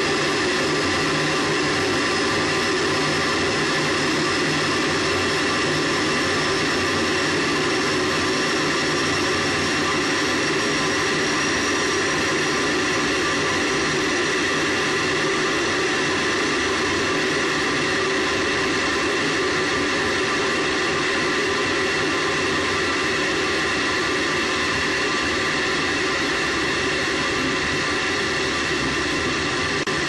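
Space Shuttle solid rocket booster firing during ascent, picked up by a microphone on the booster itself: a loud, steady, unbroken noise with a faint whistle that slowly rises in pitch through the first half.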